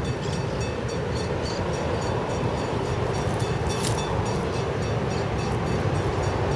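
Diesel locomotive approaching at a distance, an ALCO RSD-16 hauling a train of loaded mineral hoppers: a steady low engine rumble growing slowly louder.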